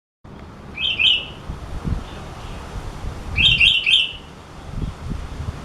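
Sooty-headed bulbul (kutilang) calling in short bright whistled phrases: two quick notes about a second in, then three quick notes past the middle. A few soft low thumps sound in between.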